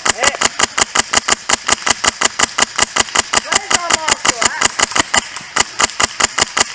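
HPA-powered airsoft M4 with a PolarStar Fusion Engine firing on full auto, a steady rattle of about eight shots a second with a brief break about five and a half seconds in.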